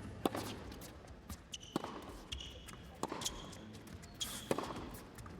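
Tennis ball struck and bouncing on an indoor hard court in a rally, a sharp knock every second and a half or so, with short squeaks of players' shoes between the shots.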